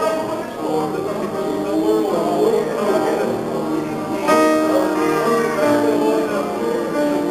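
Piano music with a voice singing along in held, wavering notes.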